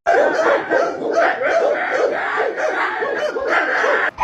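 Human laughter, loud and continuous, in rapid repeated pulses; it cuts off abruptly near the end.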